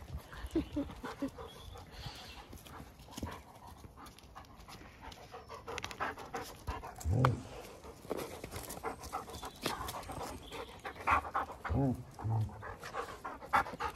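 Dogs panting while play-fighting, with a few short low vocal sounds from them part-way through.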